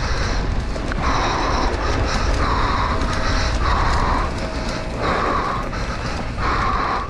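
Mountain bike ridden fast down a dirt singletrack: heavy wind rumble on the bike-mounted microphone with the bike rattling over the trail, and a short buzz that comes back about once a second.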